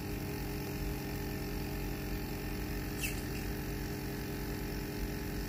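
Steady electrical hum from a 4-in-1 facial machine running, one even drone with its overtones. A single short, high falling chirp about three seconds in.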